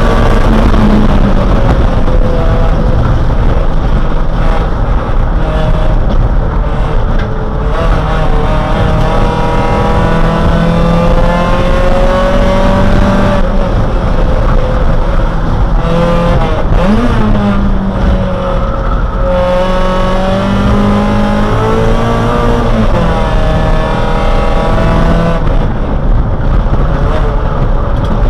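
Neon race car's four-cylinder engine, heard from inside the cabin at race pace. Its pitch climbs under acceleration and falls back with shifts and braking several times, over steady road and wind noise.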